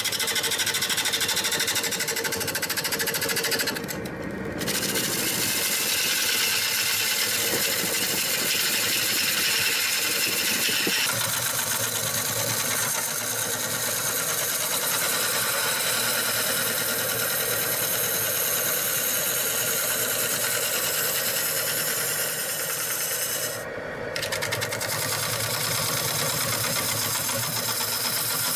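Turning tool cutting into a large maple bowl spinning on a wood lathe: a steady, rough cutting noise as the inside is hollowed out aggressively. The cut breaks off briefly twice, about 4 and 24 seconds in.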